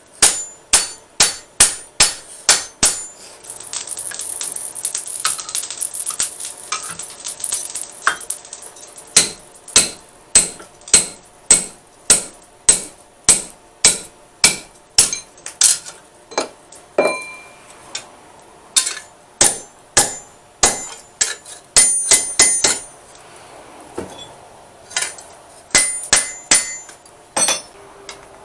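Hand hammer striking a steel smatchet blade on an anvil while forging it, sharp ringing blows at about two a second. The blows come in runs, broken early on by a few seconds of hissing noise and again briefly near the end.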